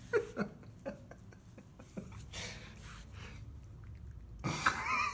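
A few short, sharp clicks, then a person's breathy, stifled laughter near the end.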